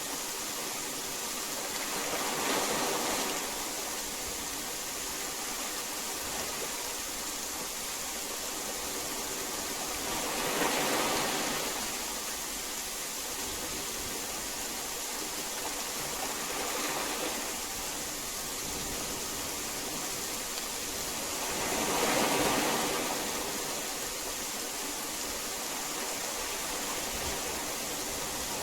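Heavy rain falling as a steady hiss, swelling louder for a second or two about four times.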